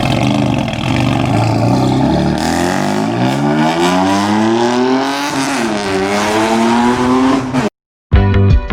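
BMW M4's twin-turbo straight-six accelerating away, its pitch climbing, dropping briefly at a gear change about five and a half seconds in, then climbing again until the sound cuts off near the end.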